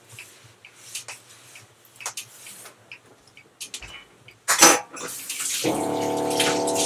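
Soft rubbing of a cloth wiping a kitchen counter, then water running into the kitchen sink as the cloth is rinsed, with a steady hum underneath from about five and a half seconds in.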